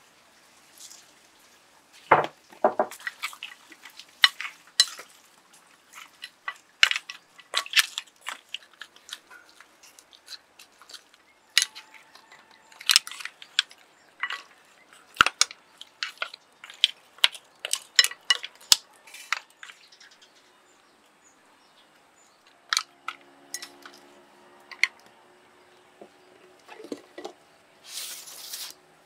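Clam shells and a wooden spoon clicking and clattering against each other and a ceramic bowl as a dish of clams is handled. The clicks come in a quick, irregular run and thin out after about twenty seconds. Near the end there is a brief scrape as a woven bamboo food cover is handled over the bowl.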